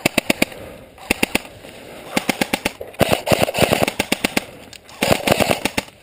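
Airsoft rifles firing in rapid bursts, about ten sharp cracks a second. There are five or six bursts, the longest running for over a second in the middle.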